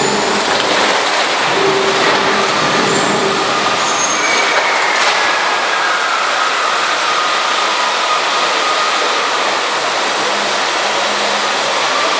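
Fountain water jets spraying with a steady, loud rushing hiss. A faint tone slides down in pitch about four to eight seconds in.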